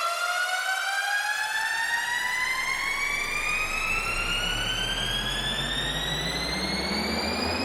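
Electronic test-tone sweep: a buzzy tone rising slowly and steadily in pitch, like a siren that never comes back down. About a second in, a low hum enters beneath it and also slowly climbs.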